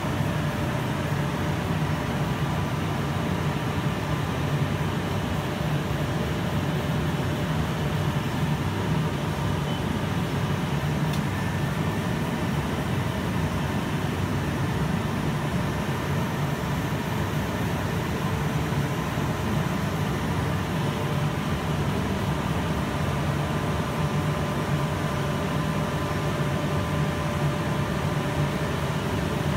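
Large Ernault Somua CNC lathe powered up and running: a steady low mechanical hum with a faint, even whine over it.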